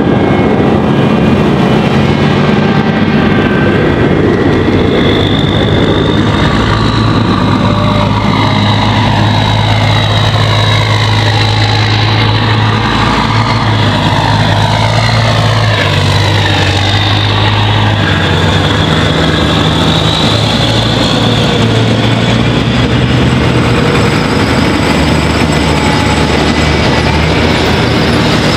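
Heavy eight-wheeled armoured vehicles, an LAV-25 and an Amphibious Combat Vehicle followed by a JLTV, driving slowly past one after another. Loud steady low engine drone with high whines, some of them falling in pitch as the vehicles go by.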